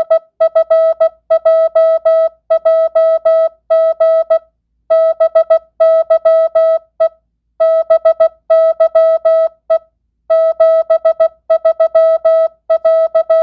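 Morse code (CW) practice tone keyed at 16 words per minute, non-Farnsworth: one steady pitch beeping in short dits and longer dahs, grouped into letters and random words with longer pauses between words.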